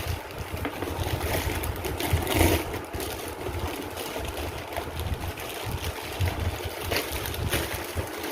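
Packaging rustling and crackling as a mixer grinder's main unit is unwrapped, louder about two seconds in, over a low rumble.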